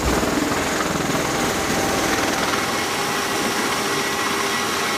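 MV-22 Osprey tiltrotor aircraft running with nacelles vertical: a steady rush from the spinning proprotors over a steady whine from the turboshaft engines.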